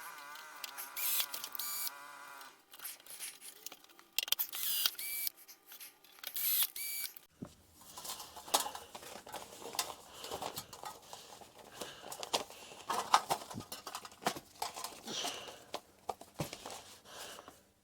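Tools being handled and set into the tool bag's sheet-metal insert: irregular clicks and knocks. A short wavering whine opens it.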